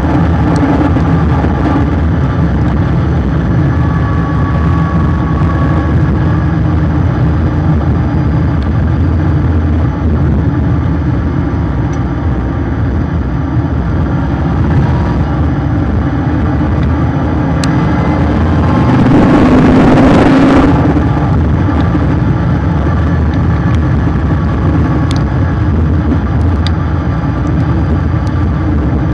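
Car driving at speed on a banked oval, heard through a bumper-mounted camera: steady engine, tyre and wind noise, with a louder rush lasting a couple of seconds about two-thirds of the way through.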